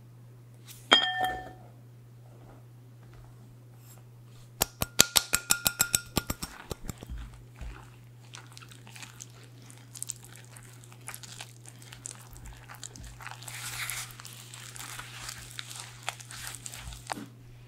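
A ringing clink on a ceramic mixing bowl about a second in. Then a quick run of taps, about ten a second for a second and a half, as the flour bowl is knocked against the rim to empty it. After that a spatula scrapes and stirs the flour into the liquid, with a dry rustle that thickens as the dough comes together.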